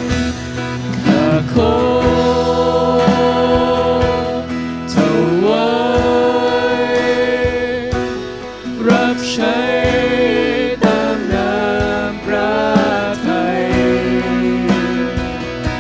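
Live worship song: several singers into microphones over a band with acoustic guitar, the voices holding long sliding notes.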